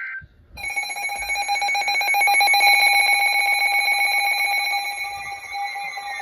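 Emergency alert attention tone from a weather alert receiver: a loud, harsh, steady alarm tone with a fast buzzing flutter, starting about half a second in. Near the end a second tone joins, falling in pitch.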